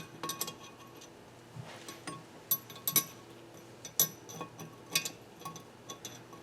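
Light metallic clinks and taps of steel valve parts and hand tools being handled on a Nissan KA24DE cylinder head during valve assembly, with about half a dozen sharp ones spaced roughly a second apart.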